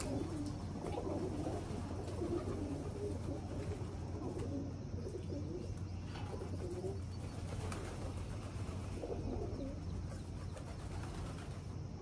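Feral rock pigeons cooing in low, throaty, wavering runs through the first several seconds and again near the end, over a steady low hum.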